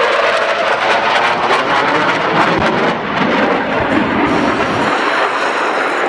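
Military helicopter engine and rotor noise mixed with a continuous crackle of blank gunfire in a staged battle demonstration.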